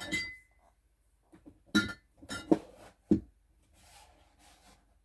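Several clinks and knocks of a glass beer bottle being handled against a metal tool and hard surface, two of them with a short ringing tone, then a soft rustle near the end.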